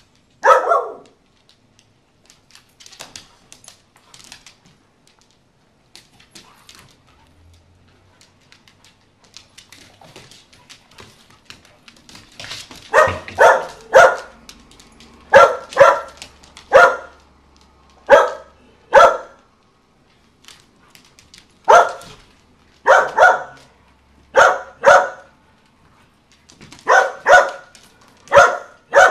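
A dog barking during rough play with other dogs. There is one bark just after the start, then a pause, then a long run of sharp barks, often coming in pairs, through the second half.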